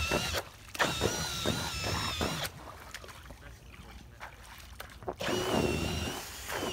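18-volt cordless drill spinning a 3D-printed PLA propeller on a threaded rod in the water: a motor whine over the churning of the prop. The whine drops away briefly about half a second in, comes back, runs much quieter through the middle, and picks up strongly again about five seconds in.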